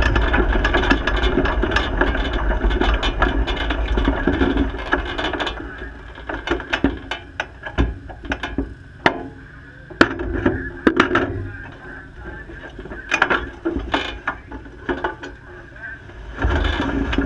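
Sprint car engine running low and steady, then dying away about five seconds in. After that comes an irregular run of sharp mechanical clicks and knocks.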